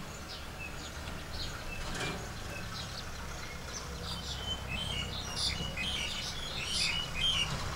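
Small birds chirping, many short irregular calls that grow busiest in the second half, over a steady low hum.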